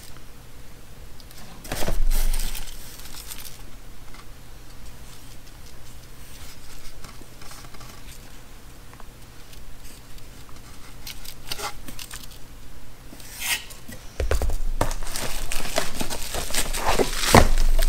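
Camera packaging being handled during an unboxing: plastic wrapping and cardboard rustling and crinkling, with scattered clicks and knocks. There is one burst of rustling about two seconds in, and the handling gets louder and busier over the last few seconds.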